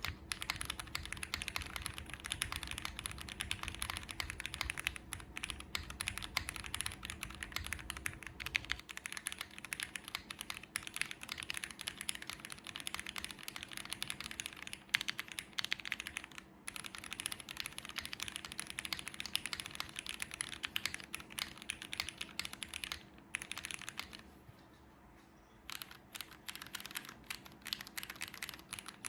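Typing on a KBDfans Odin V2 mechanical keyboard with lubed Cherry MX Black Hyperglide linear switches, a polycarbonate plate with plate foam, and GMK keycaps: a steady stream of keystrokes with a brief pause about 24 seconds in.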